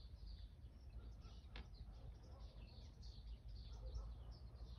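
Small birds chirping faintly and continuously in the background, over a low steady rumble, with a single sharp click about a second and a half in.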